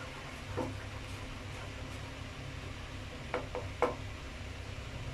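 Spatula stirring thick barbecue sauce in a nonstick pan, with a few short clatters of the spatula against the pan, one about half a second in and three close together near the end, over a steady low hum.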